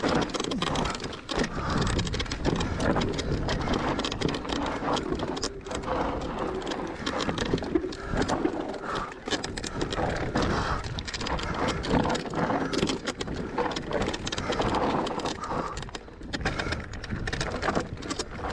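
Electric mountain bike ridden over a rough, stony trail: tyres crunching on rock and gravel, with a constant clatter and rattle from the bike.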